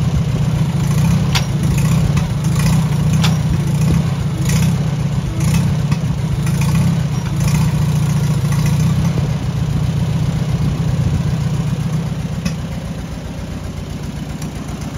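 Farmall Super A tractor's four-cylinder engine idling steadily, with a few sharp clicks over it in the first half. It becomes a little quieter near the end.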